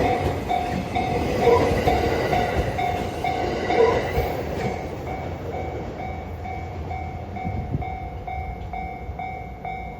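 Level-crossing warning bell ringing steadily, about two rings a second, as a JR E231 series 500 electric train passes over the crossing. The train's rumble and wheel clacks die away after about four seconds while the bell keeps ringing.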